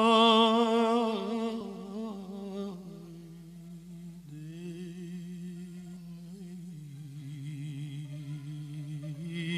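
A male singer's wordless vocal line in Persian classical avaz in dastgah Homayoun: held notes with rapid wavering ornaments, loudest at the start, then softer and lower after about three seconds, with a further step down in pitch near seven seconds.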